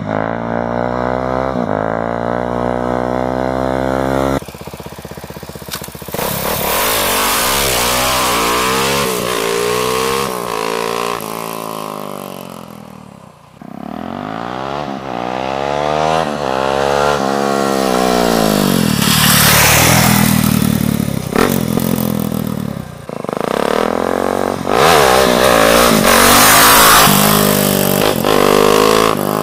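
Suzuki DR-Z400 supermoto's single-cylinder four-stroke engine breathing through a custom twin exhaust, accelerating hard through the gears on several runs. The pitch climbs and drops back at each shift, and grows louder as the bike comes close. The sound is coarse, as picked up by an action camera's microphone.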